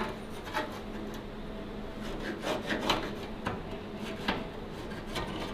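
Scattered light scrapes and clicks of a steel rule and square being set against a sheet-metal panel, with a pencil scratching a marking line.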